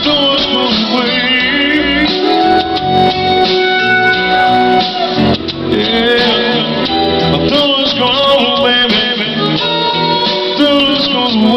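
Live band music: an electric guitar playing, with a wavering lead melody line above it.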